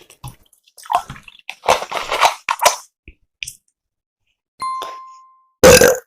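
A run of short, loud throat and mouth sounds from a cola burp challenge. About halfway through comes a single bright ding that rings and fades within a second, and near the end a very loud short burp.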